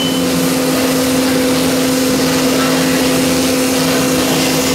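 CNC router's 9 kW HSD air-cooled spindle running at speed while its bit engraves MDF: a steady tone over an even hiss of cutting.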